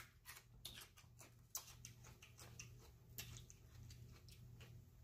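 Near silence with faint, scattered small clicks and ticks, a slightly sharper one about one and a half seconds in: quiet handling of food and a plastic sauce cup.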